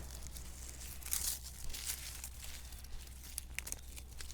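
Dead garden plants and weeds being pulled up by hand: irregular rustling and tearing of dry stalks and roots.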